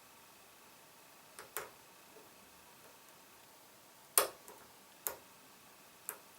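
Lock picks working in a small Yale padlock: a handful of short metallic clicks, five in all, the loudest about four seconds in.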